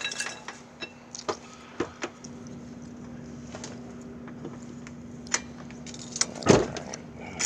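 Lug wrench and lug nuts clinking and knocking at a car wheel, with scattered light metallic clicks and one heavier knock about six and a half seconds in, over a faint steady hum.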